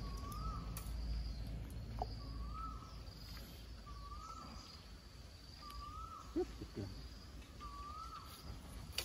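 A bird repeating one short whistled note that rises and falls, about every second and a half, with a fainter high-pitched call repeating between them. A low rumble fades out about three seconds in, and a single sharp knock sounds about six seconds in.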